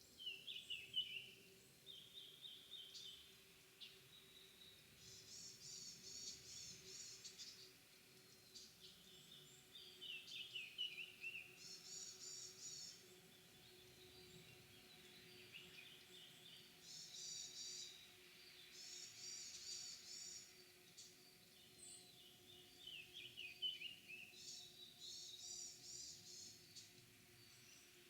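Small songbirds singing in short repeated phrases every few seconds: a high, rapid run of notes and a falling trill, answering one another. A faint steady hum lies underneath.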